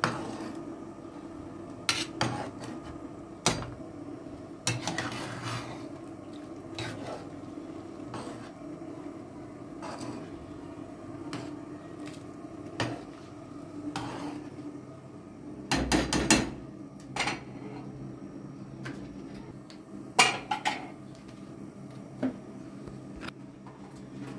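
Dishes and cutlery clattering during kitchen work: scattered clinks and knocks, with the loudest cluster about sixteen seconds in and another around twenty seconds, over a steady low hum.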